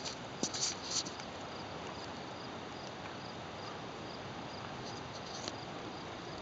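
Insects chirping in short, high-pitched bursts, a cluster of three in the first second and a couple more around five seconds in, over a steady faint high drone and an even background hiss.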